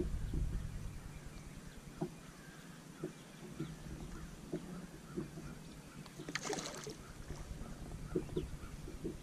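Quiet sounds aboard a fishing boat: scattered light knocks and taps, and a brief rushing hiss about six and a half seconds in.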